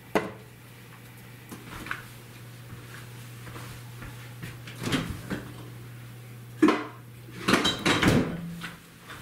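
Kitchenware handling over a steady low hum: a sharp knock as a stick of butter is set into a nonstick frying pan on a stove, then several short clatters of kitchenware about five, seven and eight seconds in.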